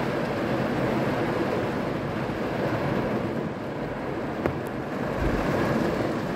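Heavy rain falling on a car's roof and windows, heard from inside the car as a steady, dense hiss, with one faint tick about four and a half seconds in.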